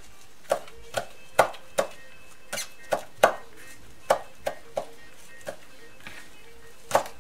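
Chef's knife chopping mallow leaves on a plastic cutting board: about a dozen sharp knocks of the blade on the board, coming at an uneven pace.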